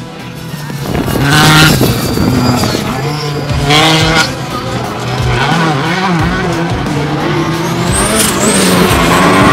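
Racing buggy engines revving hard on a dirt track, pitch climbing and dropping as they accelerate and shift, with loud surges as cars pass about a second and a half and four seconds in.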